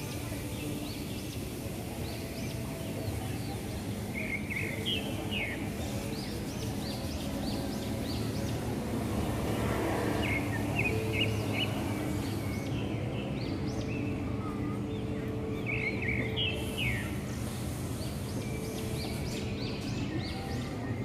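Street traffic rumbling steadily, swelling as motorbikes pass about halfway through, while a bird sings short chirping phrases that repeat every five or six seconds.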